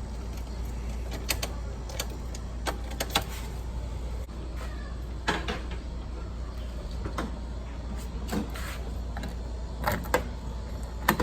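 Irregular mechanical clicks and clacks of a car door lock and latch being worked by hand to test it after its loose latch hook was refitted and sprayed with WD-40, over a steady low hum.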